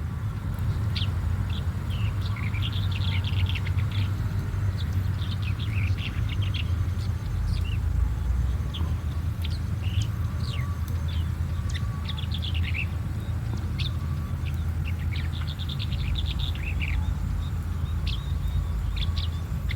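Red-headed bunting chirping: short, quick high notes in jerky runs, with brief pauses between them. A steady low rumble runs underneath.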